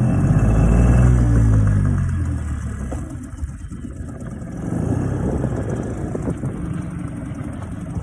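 Two-stroke 5 hp Mercury outboard motor running under throttle. It is loudest about a second in, its pitch falls as it eases off, and it picks up again about halfway through.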